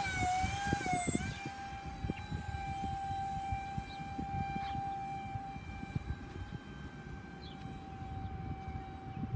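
High, steady whine of the RC jet's small electric ducted fan running in flight, its pitch dipping slightly twice in the first second or so, over a low rumbling noise.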